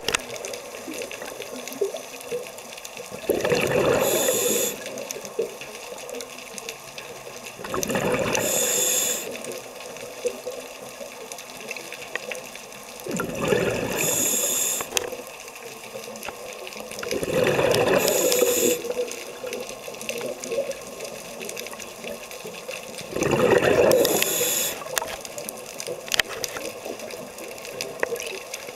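Scuba diver breathing through a regulator underwater: five loud bubbling exhalations, about one every five seconds, each lasting a second or two, with a quieter hiss between them.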